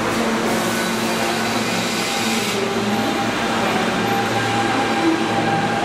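New York City subway train running in an underground station: a steady, even noise with faint steady tones on top.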